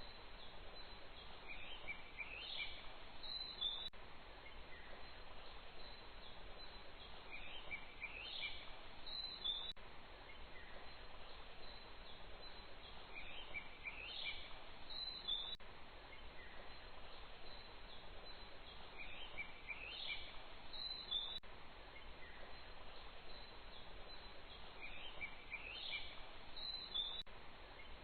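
Bird chirping over a steady hiss: a short phrase of rising chirps repeats in the same form about every six seconds, each followed by a faint tick, like a looped nature ambience.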